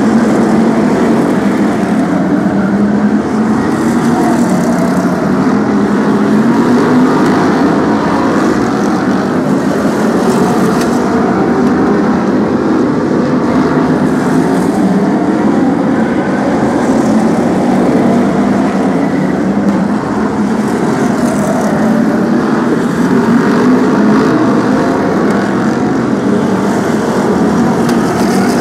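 BriSCA F1 stock cars racing: many V8 engines running together in a steady, loud din, with single engines rising and falling in pitch as cars pass.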